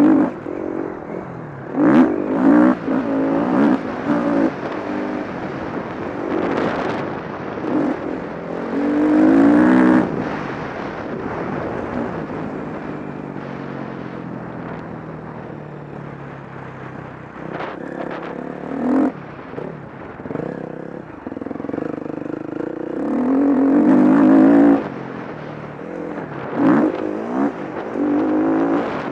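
KTM 350 SX-F motocross bike's single-cylinder four-stroke engine revving hard and easing off again and again as it is ridden on a dirt track, the throttle opened wide several times with a lower, steadier stretch in the middle. A few sharp knocks cut through.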